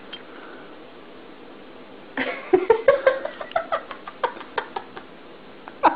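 A tabby-and-white cat vocalising: about two seconds in, a call that rises in pitch, followed by a quick run of short clicking sounds.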